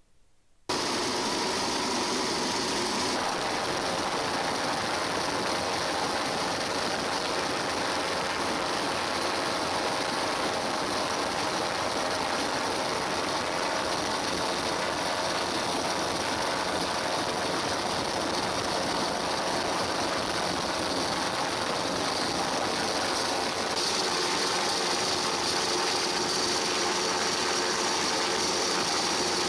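Steady engine-like drone with a strong hiss, cutting in abruptly about a second in. Its tone shifts slightly about three seconds in and again near the end.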